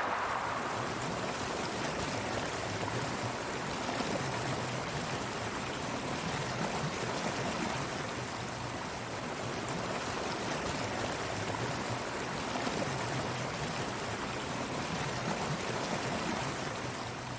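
Water falling and rushing over a waterfall: a steady, even splashing roar of water.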